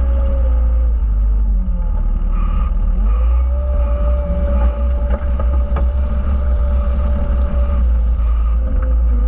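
Skid steer engine running, its pitch dipping and recovering about a second and a half in and again near the end, with a few faint clicks in the middle.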